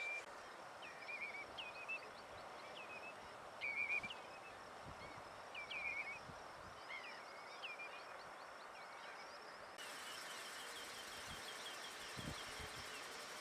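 Black-winged stilts calling: a loose series of short, sharp calls, roughly one or two a second, a little louder around the middle, over a faint outdoor background. Near the end this gives way to a faint, fast, even chirping.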